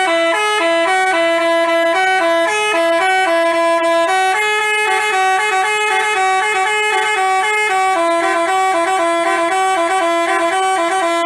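Basuri telolet horn, a multi-note bus horn, playing a quick melody. Its notes step up and down several times a second, two tones sounding together, without a break.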